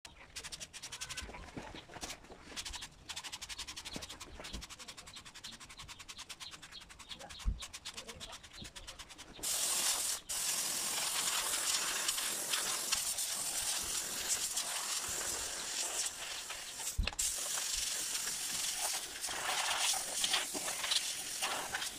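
Steam cleaner's wand hissing steadily as light steam is sprayed over an electric scooter's deck. The hiss starts abruptly about halfway through. Before it there is only a faint, fast ticking and an odd dull thump.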